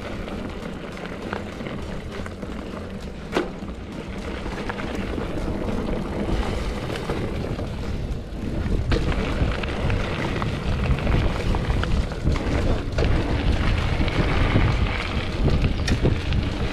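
Wind rumbling against the microphone of a mountain bike moving along a trail, with occasional sharp clicks and rattles; it grows louder from about six seconds in.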